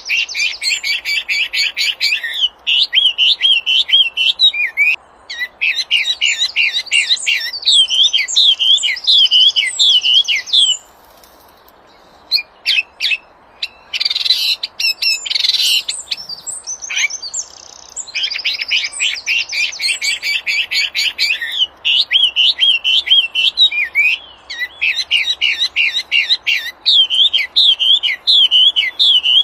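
Songbird the uploader calls a 'wambi' singing loudly. Its phrases open with fast trilled notes and run on into looping, wavering whistles. The song breaks off partway through, with a few clicks and a short rustle in the gap, then starts again.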